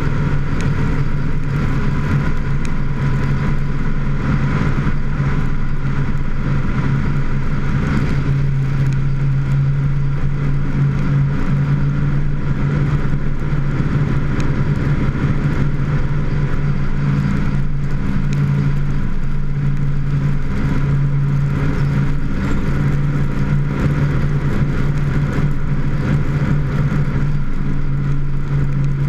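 A vehicle's engine runs at a steady cruise, heard with road noise from a camera on the hood; the drone holds an even pitch throughout.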